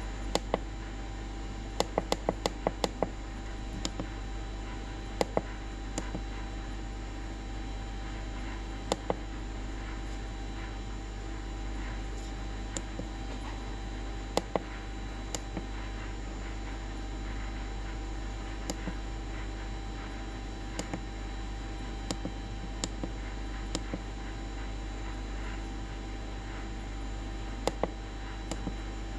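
Buttons on an RZNC-0501 handheld CNC controller's keypad being pressed, sharp clicks often in pairs and in a quick run of about six early on, scattered through, over a steady electrical hum.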